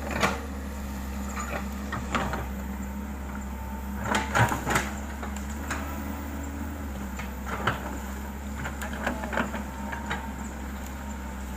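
Excavator engine running steadily, with scattered knocks and clanks, the loudest cluster about four seconds in.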